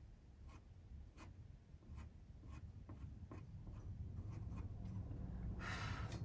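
Soft pastel stick scratching across textured pastel paper in short, faint strokes, about one or two a second, as color is scumbled into a painted eye. A louder hiss comes near the end.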